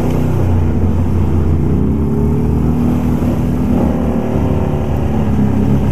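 Can-Am ATV engine running as it is ridden along a dirt trail, its pitch rising and falling with the throttle, rising notably about two seconds in and again near four seconds.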